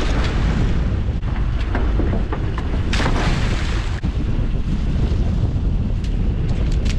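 Small outboard-powered boat running through choppy sea, with wind buffeting the microphone in a steady low rumble and spray hissing off the hull, louder splashes near the start and about three seconds in.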